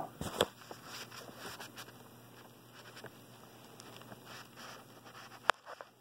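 Faint close handling noise as meter test probes are worked onto the pins of a small sensor connector plug: light scrapes, rustles and small clicks, with one sharp click about five and a half seconds in.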